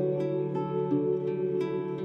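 Instrumental background music: a run of quick plucked notes over held low tones.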